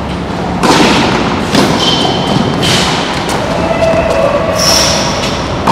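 Tennis balls being struck with rackets in a rally on a hard court, sharp hits about once a second that echo under the covered court's metal roof. Between the hits come short high squeaks of tennis shoes on the court surface.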